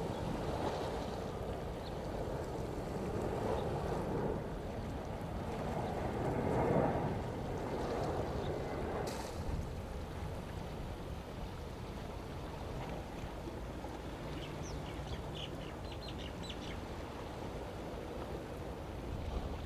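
Steady wind and water noise at the shoreline, with a few short, high bird calls about two-thirds of the way through.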